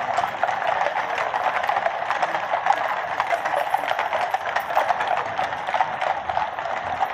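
Many shod hooves of Household Cavalry horses clip-clopping on the road surface as a mounted column passes, a dense, unbroken clatter of overlapping hoofbeats.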